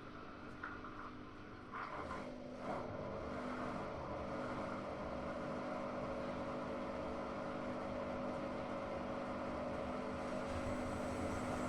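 Hotpoint-Ariston Aqualtis washing machine running, a steady machine hum from its brushless inverter motor and drum that slowly grows louder, with a few soft knocks in the first three seconds.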